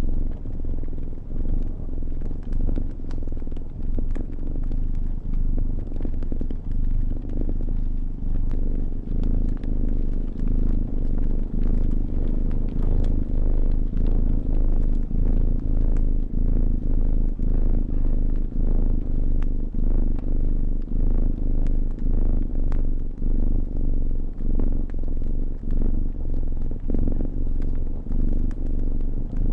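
Cat purring close up, a low rumble that swells and dips about once a second with its breathing, over the scattered pops and crackles of a wood fire.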